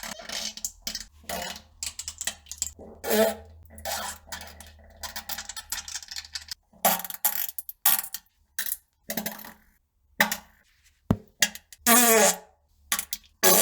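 A string of farts one after another: some short and sputtering, others longer with a wavering pitch, separated by short gaps.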